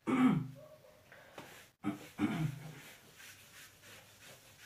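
A felt whiteboard duster wiping across the board in faint, repeated rubbing strokes, about three a second in the second half. Two short voiced sounds from the man come near the start and about two seconds in.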